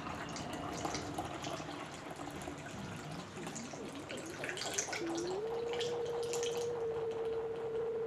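Orange juice trickling through a plastic funnel into a plastic bottle as the bottle fills. About five seconds in, a steady tone joins the pouring.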